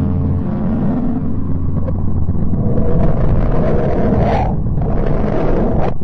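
A steady, deep, noisy rumble presented as the 'sound' of the planet Mercury: a synthetic space-sound drone, with a brief swell in its upper tones about four seconds in.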